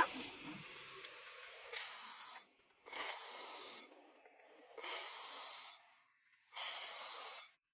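Four bursts of hissing, each just under a second long, coming at an even pace about two seconds apart.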